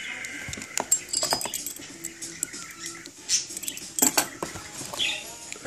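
Handling of unboxed hookah parts among packaging: rustling and crinkling of packing peanuts, bubble wrap and cardboard, with a run of sharp clicks and knocks as the Kaloud Lotus pieces are lifted and set down, the loudest about a second in and again around four seconds in.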